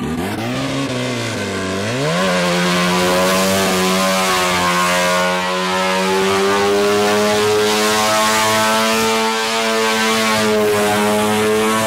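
Naturally aspirated Mazda 13B rotary engine in a Suzuki Carry kei truck, revving hard while the truck drifts: the pitch dips and climbs again in the first two seconds, then holds at steady high revs.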